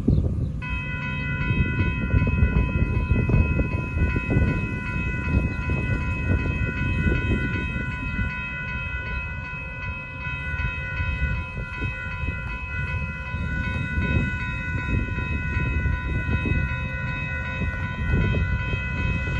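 Railroad grade-crossing warning bells start about half a second in and ring steadily in a rapid, regular pulse as the crossing activates and the gates lower for an approaching train, over a continuous low rumble.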